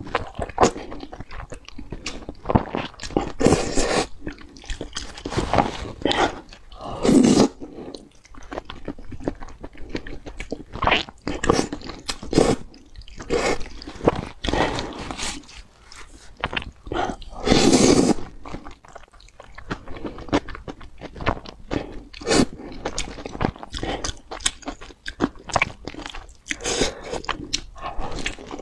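Close-miked eating of noodles: repeated slurping as strands are sucked in, between stretches of wet chewing and lip smacks. Near the end, a bite into a fried egg.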